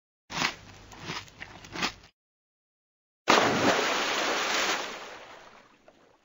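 Cartoon sound effects: a rough, noisy stretch with a few surges, then after a second of silence a sudden loud burst of noise, the 'FWAP' effect, that fades out over about two seconds.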